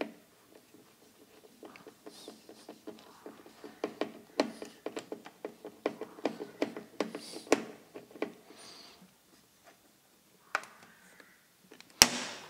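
Screwdriver turning a battery-terminal bolt down onto a ring cable lug, with many small rapid metallic clicks and scrapes, and one sharp click near the end.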